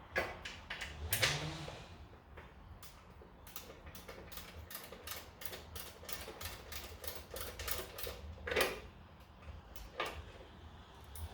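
Hand ratchet wrench clicking in quick runs of sharp ticks as the fender bolts are driven in, with a few louder knocks of tool on metal.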